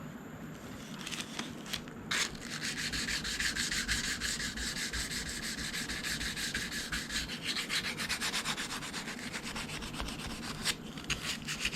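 320-grit sandpaper rubbed by hand along the sharp edges of a metal milling vise in quick back-and-forth strokes, deburring them. It starts about a second in, with a sharp knock about two seconds in.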